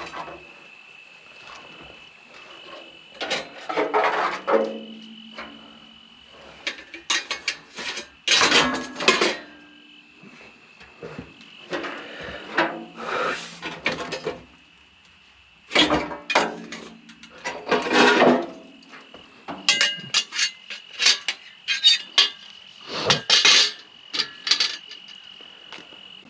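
Pieces of scrap metal clanking and rattling as they are handled and tossed, in repeated short bouts of clatter. Underneath runs a steady high insect trill.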